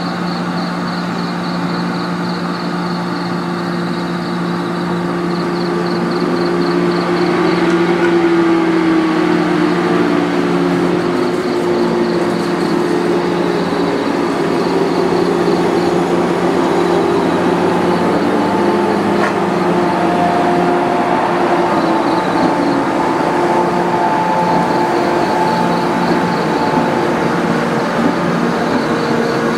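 JR Kyushu 415 series electric multiple unit humming steadily as it stands, then pulling away: its traction motors whine up in pitch and the sound grows louder about 7 to 10 seconds in, with the car wheels running on the rails.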